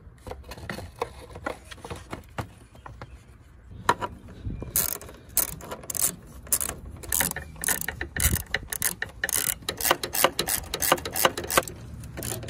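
Hand ratchet with a socket extension clicking as a bolt is run in, in quick runs of clicks that start about five seconds in and keep going to near the end.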